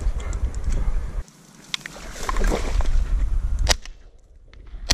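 Two shotgun shots from a Browning A5 semi-automatic, sharp cracks about a second apart, the first a little under four seconds in and the second right at the end.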